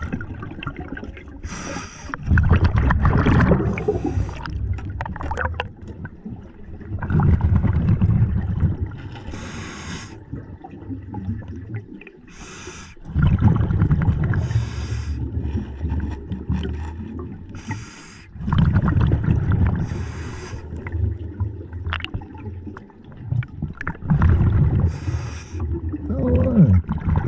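Scuba diver breathing through a regulator underwater: a short hiss of each inhale, then a longer rumbling gurgle of exhaled bubbles, repeating every few seconds.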